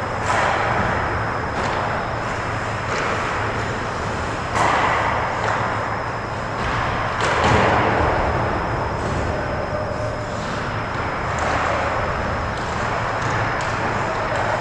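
Ice hockey game sound in an echoing indoor rink: a steady hiss of skates and arena noise with scattered sharp clicks and knocks of sticks and puck, and two louder surges of skate scraping about four and a half and seven and a half seconds in.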